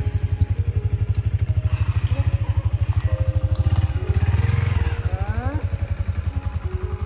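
Yamaha Exciter motorcycle's single-cylinder engine idling with a quick, even pulsing beat, swelling briefly about four seconds in.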